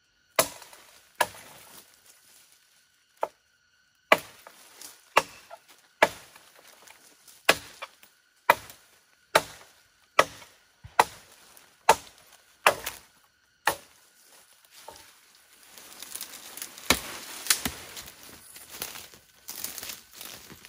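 Blade chopping into green wood, about one sharp stroke a second for some fourteen strokes, felling saplings for shelter poles. Near the end come several seconds of rustling and cracking branches and leaves.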